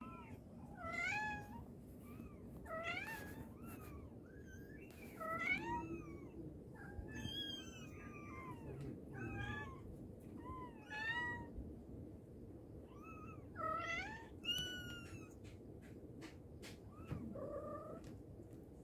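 Mother cat meowing over and over to call her kittens: many short meows, one every second or so, several rising then falling in pitch.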